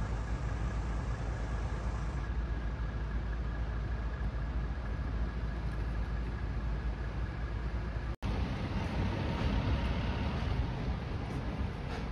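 Steady outdoor street noise, a low rumble of road traffic. The sound drops out for a split second about eight seconds in.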